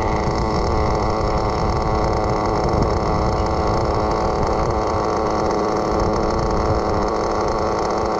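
Small .12 nitro engine of a Kyosho FW06 RC car idling at a steady pitch.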